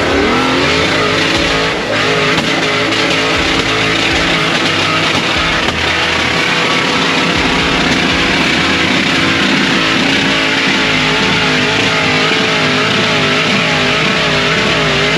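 Off-road 4x4's engine revved up and held at high revs under load while climbing a rock obstacle, the pitch wavering near the end as it works.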